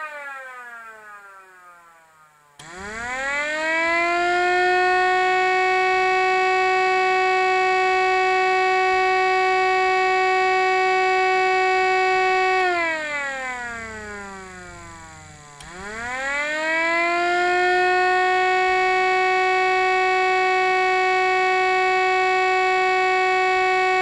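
Miniature 3D-printed Federal Signal STL-10 siren, its rotor spun by a small 130 DC motor, sounding an attack signal. It winds down, cuts back in about two and a half seconds in and climbs to a steady high wail, holds for about eight seconds, winds down for about three seconds, then climbs back to the steady wail and holds.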